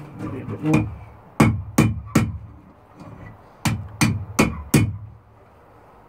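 Hammer blows on hot steel over an anvil, bending a bar round the horn: two runs of about four ringing strikes each, a little under half a second apart.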